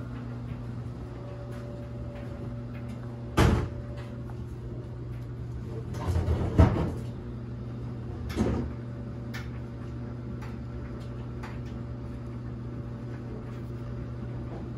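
A few sharp knocks over a steady low hum: one about three seconds in, a short rattling clatter of knocks a few seconds later (the loudest), and one more about two seconds after that.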